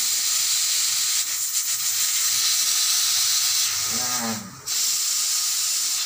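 Refrigerant gas from the freon tank hissing out of a loosened charging-hose fitting at the manifold gauge, purging air from the hose before charging. It is a steady, high hiss that breaks off briefly about four and a half seconds in, then resumes.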